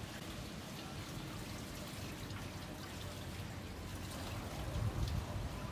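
Water trickling and pouring steadily, with a low rumble that swells about five seconds in.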